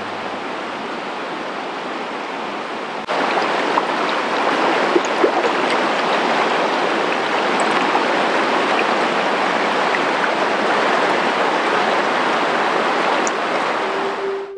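The River Blackwater rushing steadily over a weir and rocks, a constant hiss of flowing water that gets suddenly louder about three seconds in.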